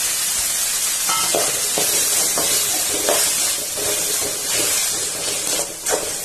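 Chopped tomatoes, onions and green chillies sizzling in oil in a metal kadai, with a metal spatula scraping the pan in irregular stirring strokes.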